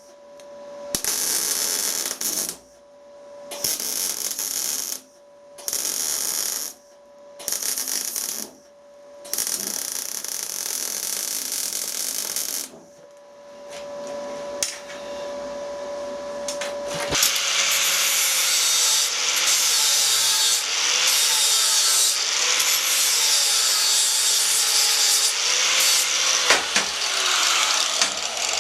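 MIG welder arcing in about six short runs of a second or two each, stopping and starting as a washer and nut are welded onto a broken stud. From about two-thirds of the way in, a power tool runs continuously with its pitch wavering.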